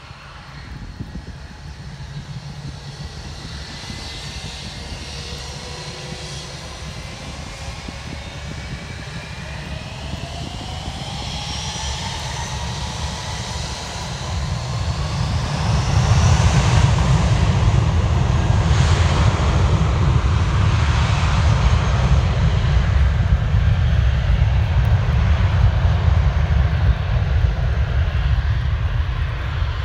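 Airbus A320 airliner's two jet engines spooling up with a rising whine, then running loud and steady with a deep rumble at takeoff thrust as the aircraft starts its takeoff roll. The whine climbs through the first half, and the loudness jumps about halfway in.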